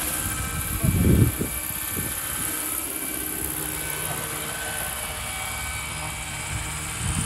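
Roban Bell 412 super-scale RC model helicopter flying low and settling toward the ground: steady rotor whir with a high whine over it. A brief loud low buffet comes about a second in.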